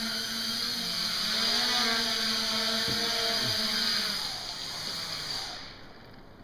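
Homemade KK-board quadcopter's electric motors and propellers whirring steadily, the pitch wavering as the throttle shifts. Near the end the motors wind down and stop.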